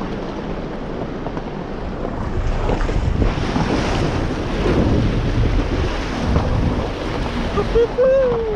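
A car driving through a shallow creek: rushing and splashing water with the rumble of tyres, swelling midway through. Near the end comes a brief tone that rises and then falls.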